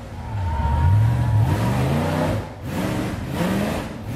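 Rock bouncer buggy's engine revving hard under load as it climbs a steep rocky hill. The pitch surges up and down, with a short dip about two and a half seconds in.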